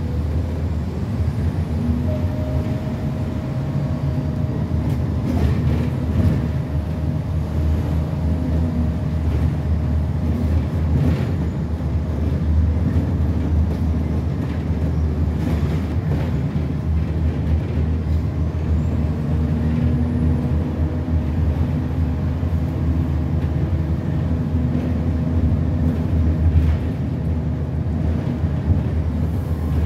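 Inside an Optare Solo M950 midibus under way: the diesel engine and drivetrain run with a steady low rumble, and a few short knocks and rattles come through the cabin.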